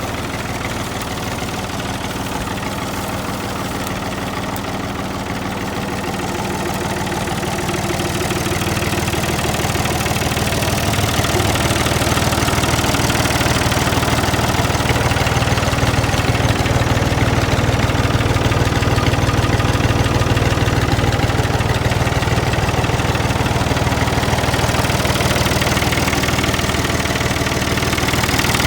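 Oliver 1365 tractor's diesel engine running steadily at idle, growing somewhat louder about a third of the way in and then holding even.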